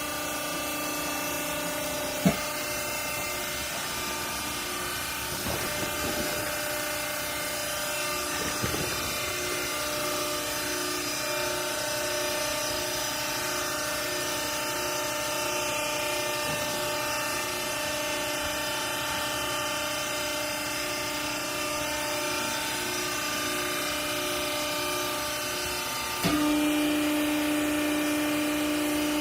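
Hydraulic baling press's motor and pump running with a steady whine. One sharp knock comes about two seconds in, and the whine steps up louder near the end.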